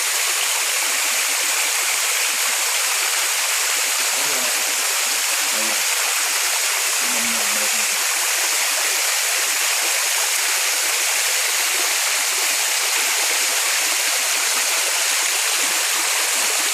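Waterfall: a steady, even rush of falling water, heavy in the hiss and light in the low end.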